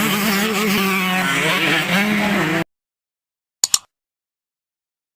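Motocross bike engines running and revving, cut off abruptly about halfway through; then silence broken by two short, sharp double clicks.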